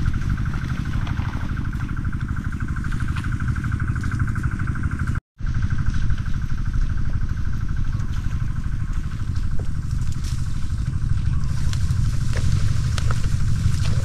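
A small engine running steadily, with a whine over its low, rapid pulsing in the first few seconds; the sound cuts out completely for a moment about five seconds in, then carries on.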